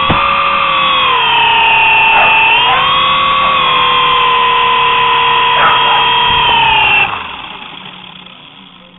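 Small electric motor and rotor of a toy remote-control camera helicopter whining steadily, its pitch dipping and rising a little with the throttle. About seven seconds in the pitch falls and the whine dies away as the motor spins down.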